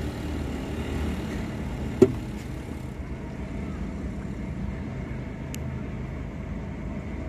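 Vehicle engine idling steadily, heard from inside the cab, with one sharp click about two seconds in.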